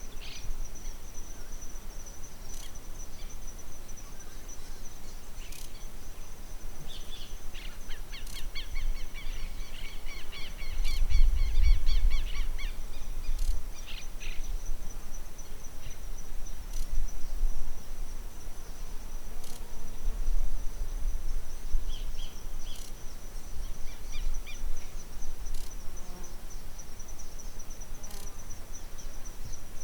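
A steady, high-pitched insect trill running without a break. Over it a bird sings a run of repeated chirps between about 7 and 14 seconds in, with a shorter phrase later. Wind rumbles on the microphone in gusts around the middle.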